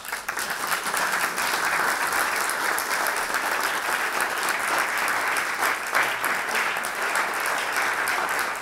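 A roomful of audience members applauding. The clapping starts all at once and keeps up steadily.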